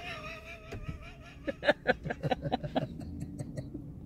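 Soft laughter in quick short pulses, about five a second, after a held, slightly wavering tone in the first second or so.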